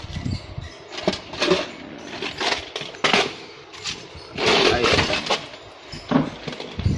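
Plastic boxes and household items being handled and shifted, giving a series of irregular clattering and rattling knocks with short pauses between them.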